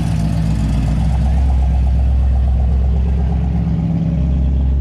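A car engine running with a steady deep low rumble, shifting slightly in pitch about four seconds in.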